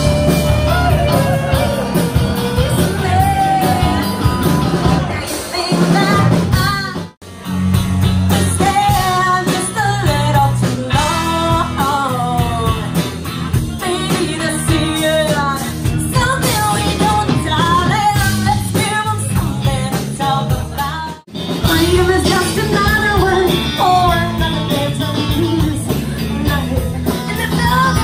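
Live rock band playing, with a woman singing lead over electric guitars and drums. The sound cuts out for an instant twice, about seven and twenty-one seconds in.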